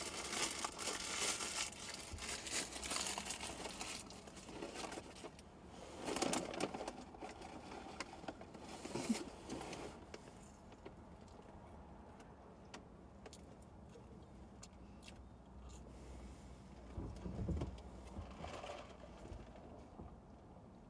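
Paper fast-food wrapper and bag rustling and crinkling as a cheeseburger is handled and eaten, busiest in the first half with a few louder crackles, then quieter.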